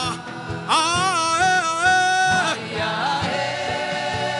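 Gospel worship music: a voice sings one long, wavering held note over sustained background tones and a steady soft beat.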